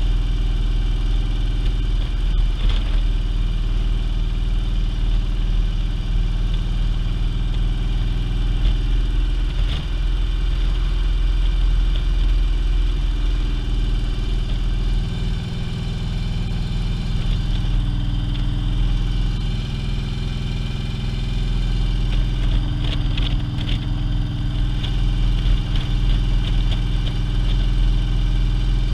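Touring motorcycle's engine running steadily at road speed, heard from the rider's seat behind the fairing. The engine note changes slightly about halfway through.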